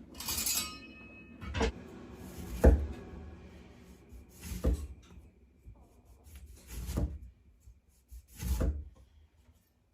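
Kitchen handling noises while preparing food: a scrape in the first second, then several separate knocks and rubs a second or two apart, the loudest about a third of the way through.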